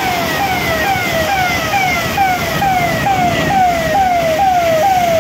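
Electronic siren sounding in fast repeated falling sweeps, about two a second, each dropping in pitch and then jumping back up.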